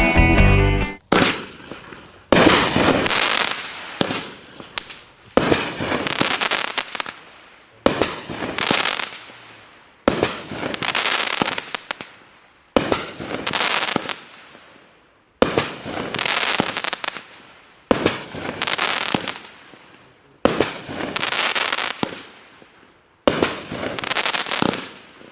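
A 200g cake firework firing shot after shot, about one every two and a half seconds. Each shot is a sharp bang followed by a crackle that fades over about two seconds.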